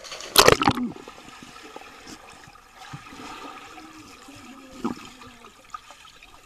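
A loud splash into a swimming pool about half a second in, as a person jumps in, followed by muffled underwater sound of bubbling and water movement with the microphone submerged. A smaller splash comes near the five-second mark.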